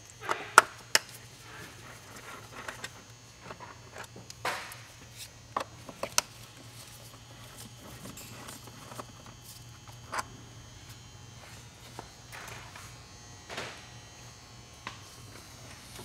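Scattered clicks and knocks of a 5 mm Allen wrench on the engine cover's fasteners and of the plastic engine cover of a BMW 135i/335i being handled; a handful of sharp taps a few seconds apart, the loudest about half a second in.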